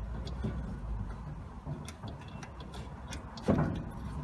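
Handling noise of electrical wires and spade connectors being fitted to a washing machine motor's terminal tabs: scattered small clicks and rustles over a low steady rumble, with one louder bump about three and a half seconds in.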